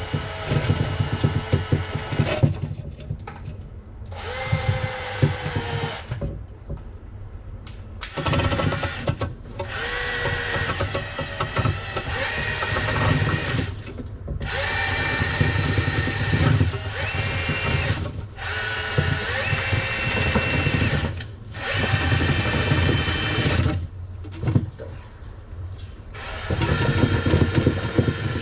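Electric drain-cleaning machine (power drain auger) running in repeated bursts while clearing a blocked sink drain. Its motor starts and stops every few seconds, with a steady whine and a rattle.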